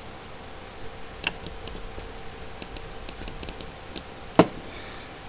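Computer mouse and keyboard clicks, a dozen or so short irregular clicks with one louder knock about four seconds in, over a faint steady hum.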